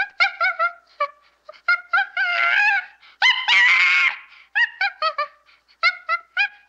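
A gibbon calling: quick runs of short rising hoots, broken in the middle by two longer, wavering whoops. The second whoop is harsher and the loudest.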